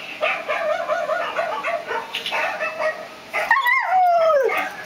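Dog giving a quick run of short yipping calls, then one long howl about three and a half seconds in that slides down in pitch.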